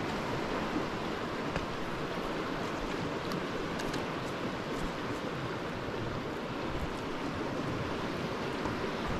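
Steady rushing of river water, with a few faint ticks scattered through it.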